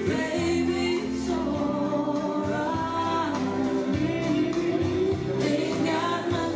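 Country song with a singer and backing band.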